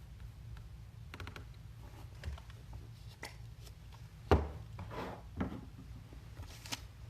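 Objects being handled on a table: scattered light clicks and taps, with one louder knock about four seconds in.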